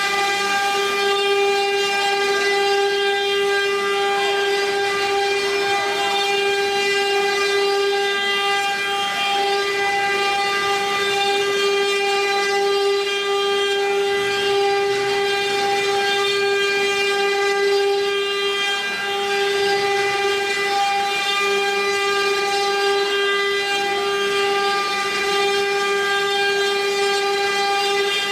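Spindles of a twelve-spindle cylinder-engraving CNC router running, a steady high whine with overtones, holding one pitch throughout, with a faint hiss that comes and goes over it.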